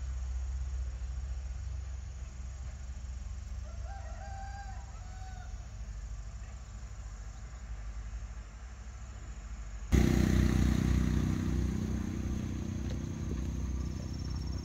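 A rooster crows once, fairly faint, about four seconds in over a steady low rumble. About ten seconds in, a louder low rumbling hum starts abruptly and continues.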